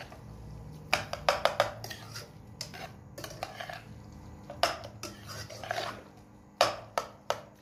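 Slotted steel spoon stirring thick grated-carrot halwa in a pan, mixing in sugar. The spoon clinks and scrapes against the pan in irregular clusters of sharp knocks.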